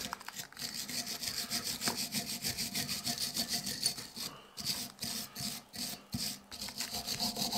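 A wire brush scrubbing rust and crud off a cast brake caliper in quick back-and-forth strokes, several a second, with short breaks about four and a half and six seconds in.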